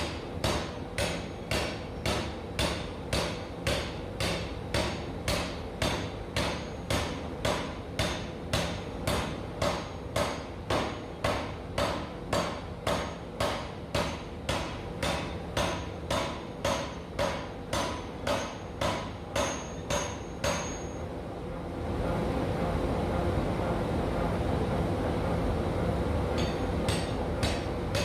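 Massey power hammer striking hot steel bar in round swages, an even run of blows about two a second, finishing the eye bolt's stalk to round. About two-thirds of the way through the blows stop and a steady rushing noise takes over for several seconds, then the blows start again near the end.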